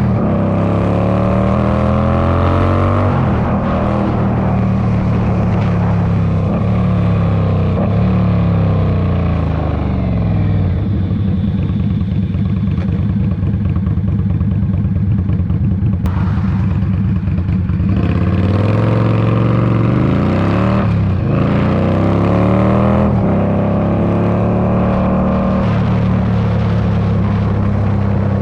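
Indian Scout Bobber's V-twin engine through a straight-pipe exhaust, accelerating hard up through the gears. The pitch climbs and drops back at each shift, holds steady at cruise for several seconds midway, then climbs through the gears again.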